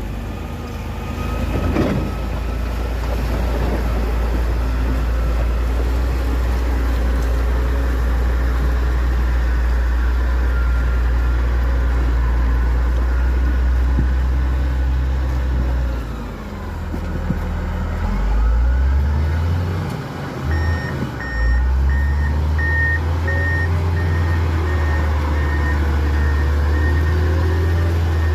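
A heavy vehicle's engine running with a deep, steady rumble. It drops and revs back up around the middle. From about two-thirds of the way in, a reversing alarm beeps about twice a second.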